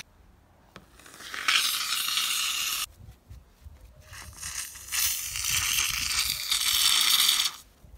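Aerosol can of Kaleidofoam play foam spraying out foam in two hissing bursts, the first about a second and a half long and the second about three seconds.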